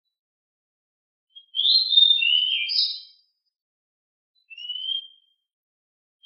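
A songbird singing: a quick jumbled phrase of clear whistles lasting under two seconds about a second and a half in, then a single short, slightly rising whistle near the end.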